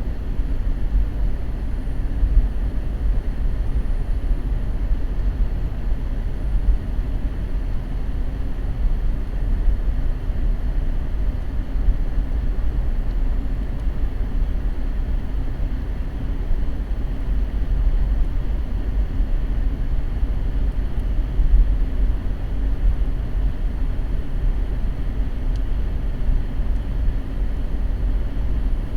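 Car driving: a steady low rumble of road and engine noise, with no breaks or changes.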